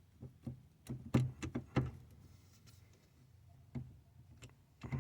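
Scattered clicks and knocks of plastic steering-column parts being handled and tugged: several in the first two seconds, a quieter stretch, then a few more near the end.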